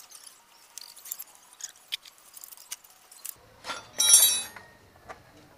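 Light metallic clicks and taps of a wrench working on a scooter's front fork bolts, then, about four seconds in, a louder jangling clink of loose metal parts.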